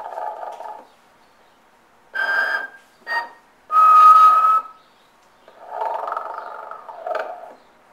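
A snoring Santa: a rasping snore on the in-breath, then whistled out-breaths. Rasping snores come at the start and again about six seconds in; whistles come around two seconds in, briefly at three, and a longer, louder one about four seconds in.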